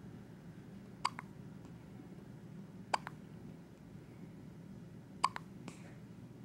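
Newborn baby hiccuping three times, roughly two seconds apart. Each hiccup is a short, sharp hic followed at once by a fainter click.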